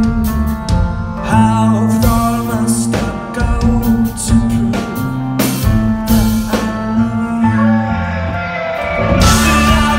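Live rock band playing a song: sung vocals over guitar, held bass notes and drums, heard from within the crowd.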